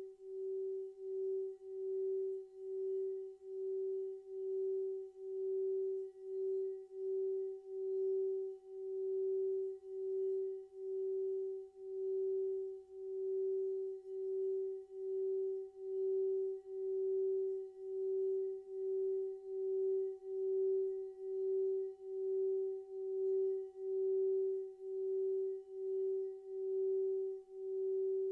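Hand-held metal singing bowl being sung by circling a mallet around its rim: one steady, clear hum with a faint higher overtone, swelling and fading about one and a half times a second as the mallet goes round.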